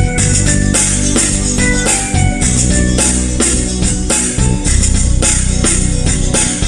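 Instrumental rock backing track with drums and guitar keeping a steady beat, no voice.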